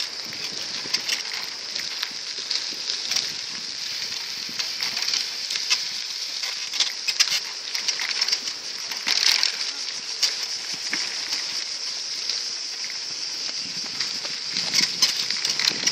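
Cicadas buzzing steadily at a high pitch, over the irregular crackle of bicycle tyres rolling on an unpaved path.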